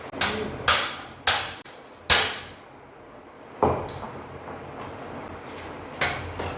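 Six sharp knocks at uneven intervals, each dying away briefly; the loudest comes about two seconds in.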